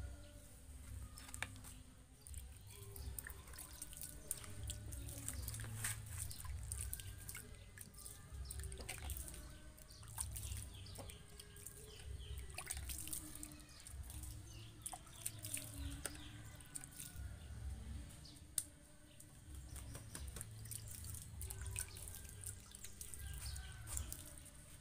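Water splashing and dripping onto the potting soil of a bonsai as it is sprinkled by hand from a bucket, in many small irregular splashes.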